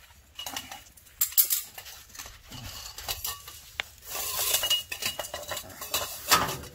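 Sharp metallic clinks and scrapes of a steel exhaust cutout cap and its V-band clamp being handled and fitted against the car's exhaust pipe, the cap that closes off the cutout for street driving.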